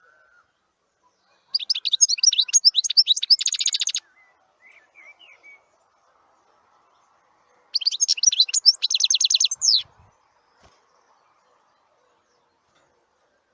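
A songbird singing two phrases a few seconds apart, each a quick jumble of high notes ending in a fast trill, with a few soft chirps between them.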